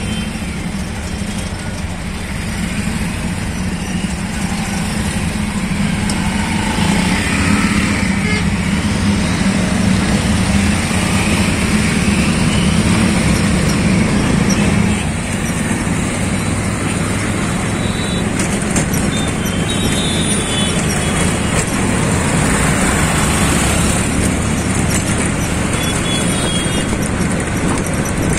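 Auto-rickshaw's small engine running steadily while riding in its open cabin, with road and traffic noise all around. The drone grows louder for a stretch and drops suddenly about halfway through.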